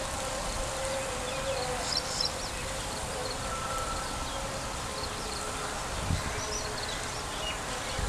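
Outdoor background of a steady mid-pitched hum over a low rumble, with a few faint, brief high chirps.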